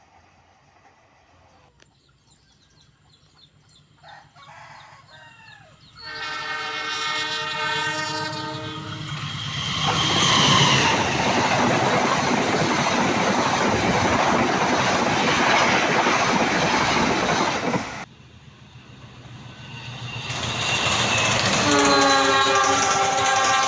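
Indonesian diesel locomotive horn sounding the semboyan 35 signal, a chord held for about three seconds, followed by the train passing close with loud rushing and wheel clatter. After a sudden cut, another locomotive horn starts sounding near the end.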